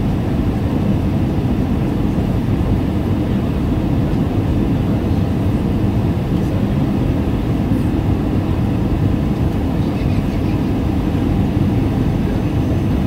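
Airliner cabin noise on the approach to landing: a steady low rumble of engines and rushing air heard from inside the cabin.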